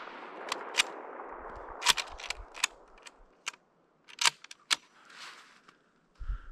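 The echo of a rifle shot dies away over the first two seconds. Over it comes a string of sharp metallic clicks and clacks as the bolt of a Finnish m/39 Mosin-Nagant rifle is worked between shots.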